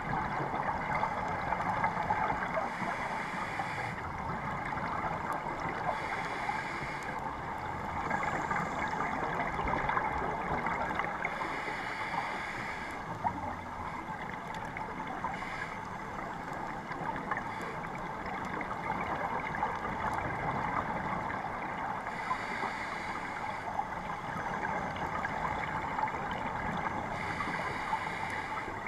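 Scuba diver's breathing heard underwater through a GoPro's waterproof housing: a steady muffled rush, with bubbling bursts from the regulator exhaust coming back every four or five seconds.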